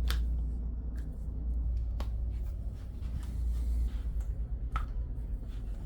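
Hands working a wrist during a chiropractic adjustment: a low rumble of handling with three short, sharp clicks, one about every two and a half seconds.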